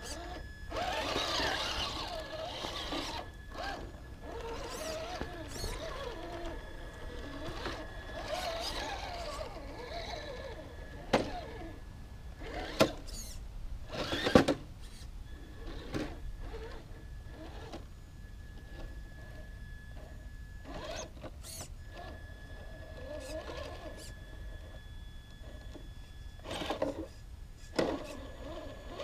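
Traxxas TRX-4 Sport RC crawler's electric motor and geared drivetrain whining in spurts as it crawls, with a thin steady high whine under it. A few sharp knocks come around the middle.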